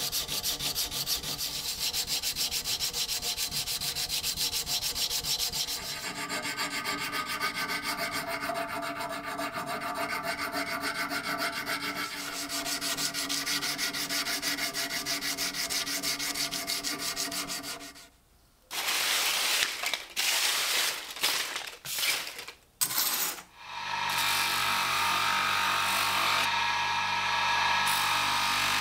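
Sanding: abrasive rubbed steadily against a hard workpiece. The sanding stops about 18 s in and comes back as several short passes. From about 24 s on a steadier sanding sound runs with a motor hum under it.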